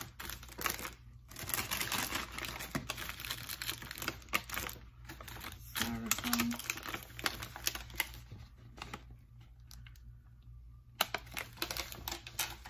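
Wrapped chocolate bars and their packaging being handled, with rustling, crinkling and a quick run of light taps and clicks. The handling goes quieter for a couple of seconds near the end, then starts again.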